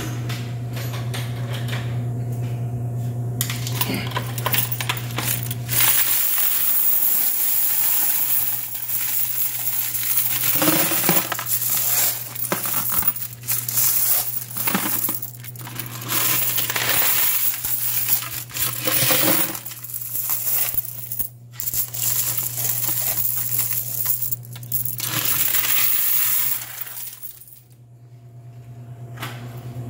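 Laundromat quarters clattering and jingling almost without a break, over a steady low hum that is strongest in the first few seconds. The clatter stops a couple of seconds before the end.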